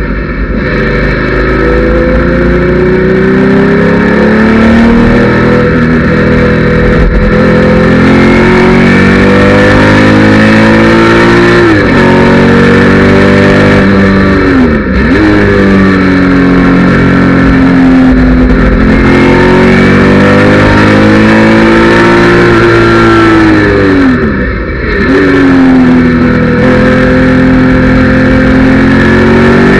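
Porsche 911 SC's air-cooled flat-six at full throttle on track, heard from inside the cabin. The pitch climbs through long pulls and drops sharply a few times at gear changes and under braking.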